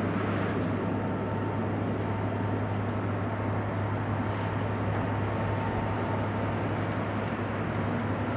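Class 67 diesel locomotive running with a steady low drone as it approaches slowly, hauling a train of coaches.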